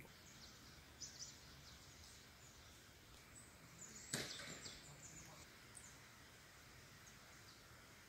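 Near silence: faint quiet ambience with a few soft ticks about a second in and one sharper crack about four seconds in.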